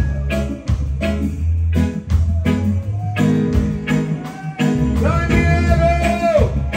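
Live roots reggae band playing an instrumental passage: a heavy repeating bass line under offbeat guitar chops, with a long held sung note about five seconds in.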